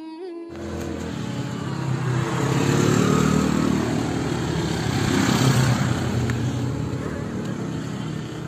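A motorcycle engine running as it rides past, growing louder to a peak about halfway through and then fading.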